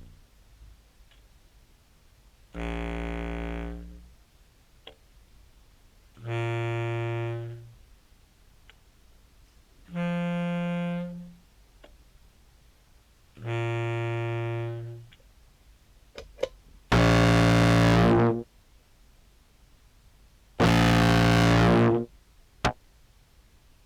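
Sampled contrabass clarinet notes: four short low notes with pauses between them, then from about 17 s two louder, brighter notes distorted through a Behringer Brassmaster fuzz pedal. Faint clicks sound between the notes. The hard tongued attack comes out through the fuzz as a percussive sound rather than a pitched one.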